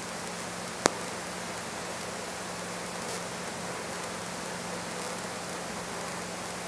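Steady hiss of the aircraft's headset intercom audio between transmissions, with a faint steady hum beneath it and a single sharp click about a second in.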